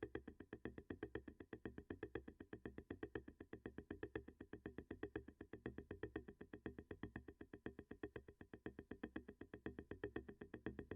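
Quiet electronic music from a Eurorack modular synthesizer: a fast, even pulse of short pitched notes, about seven or eight a second.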